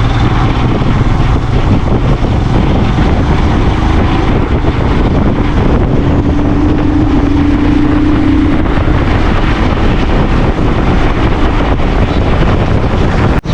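Wind buffeting the microphone on a moving motorcycle, with engine and road noise underneath. A steady tone sounds for a couple of seconds around the middle.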